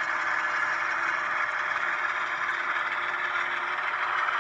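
ScaleTrains model CSX diesel locomotive rolling slowly on its track, its onboard sound system playing a steady diesel engine running sound with a faint low hum over a hiss.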